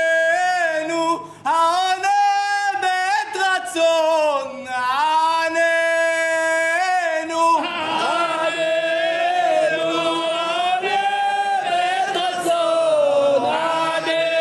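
A man sings a Hebrew prayer chant in full voice, holding long notes with ornamented turns. From about halfway through, other men's voices join in under him.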